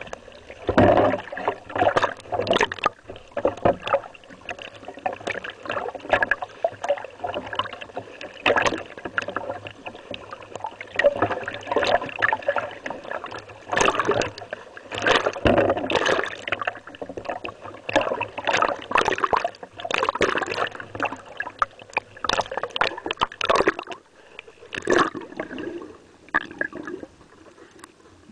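Sea water sloshing and splashing against a camera held at the surface among small waves, in irregular gushes, over a faint steady low hum; quieter for the last few seconds.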